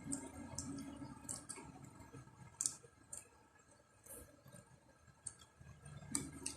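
Faint, scattered clicks and smacks of someone eating, about a dozen short sharp ones at irregular intervals.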